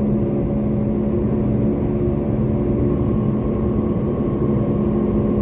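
Toyota Corolla cruising at a steady speed: the engine and road noise blend into a constant low hum.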